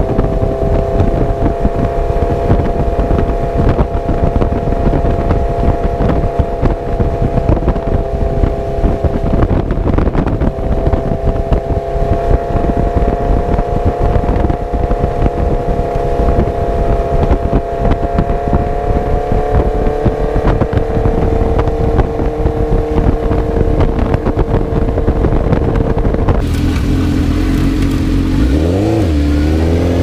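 Motorcycle engine running at a steady speed with heavy wind buffeting on the camera microphone. Near the end the sound shifts and the engine pitch briefly rises and falls.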